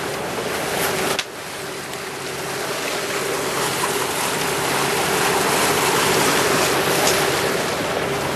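Motorboat's engine running with a steady low hum under a constant rush of wind and water noise. The noise cuts down abruptly about a second in, then slowly builds again.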